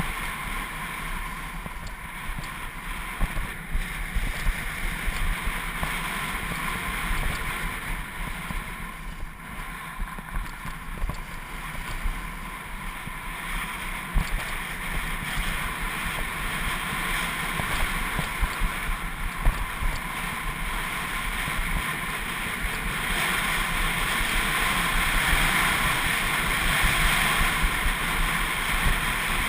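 Wind rushing across the microphone of a camera carried on a downhill ski run: a steady hiss with irregular low buffeting, growing louder about three quarters of the way through as the run speeds up.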